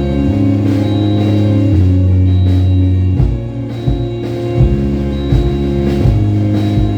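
Music: held instrumental notes over a changing bass line, with a few drum hits coming in about halfway through.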